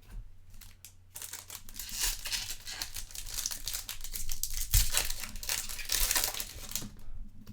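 Foil wrapper of a Topps Chrome trading card pack being torn open and crinkled, a dense crackling that starts about a second in and dies away near the end.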